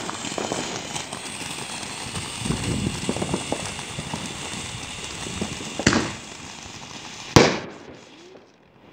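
A spark-spraying firework fixed to a post hissing and crackling steadily as it throws out sparks, with two sharp bangs about six and seven and a half seconds in, the second the loudest, after which the hiss dies away.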